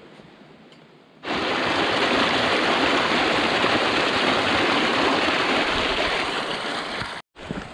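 Snowmelt stream rushing under the snowpack, heard through an opening in the snow: a loud, steady rush of water that starts suddenly about a second in and cuts off just before the end.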